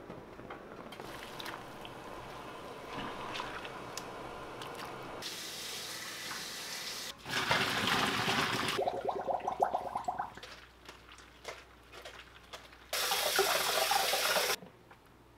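A foamy pot bubbling on the boil. About seven seconds in, hot water is suddenly poured out through a mesh strainer into a stainless steel sink, thinning to a stream. Near the end the kitchen tap runs for about a second and a half over the greens in the strainer, then is shut off.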